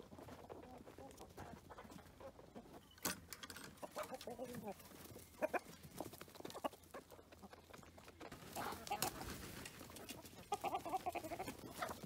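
Chickens clucking softly now and then, with a few short sharp clicks among them.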